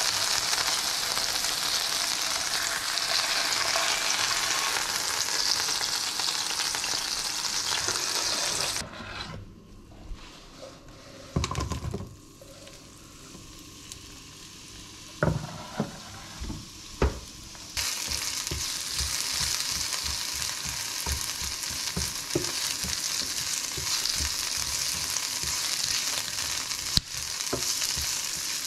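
Chicken breasts frying in oil in a nonstick pan, with a steady sizzle. About nine seconds in, the sizzle drops away for several seconds and there are a few sharp knocks. It then returns as sliced onions fry in the pan, with a spatula tapping and scraping against the pan as they are stirred.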